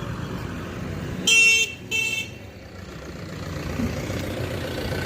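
A vehicle horn sounds two short toots about a second and a half in, over a steady rumble of street noise.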